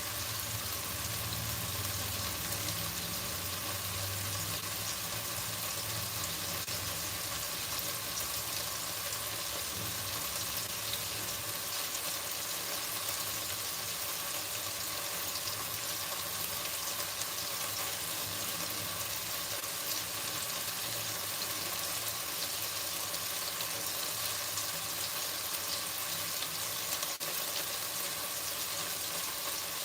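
Chicken frying in a pan: a steady sizzle.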